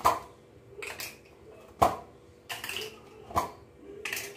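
Plastic kulfi mould tray and its lid-sticks clicking and knocking as the lids are pulled off and set down: several short hard plastic clacks, about one a second.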